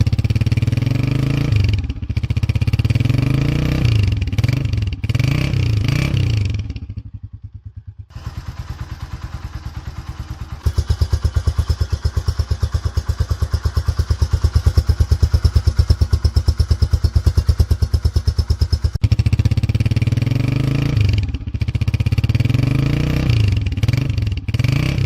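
125 cc single-cylinder four-stroke motorcycle engine, either the Honda CG125 or the Yamaha YBR125Z, revved in repeated short blips. About seven seconds in it drops back to a steady idle, and after roughly ten seconds of idling it is blipped again.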